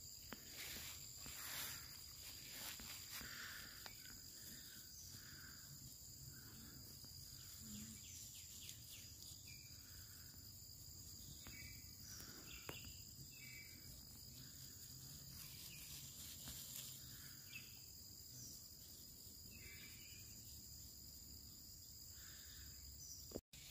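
Faint outdoor ambience: a steady high insect drone, with a few short chirps and light rustling through grass.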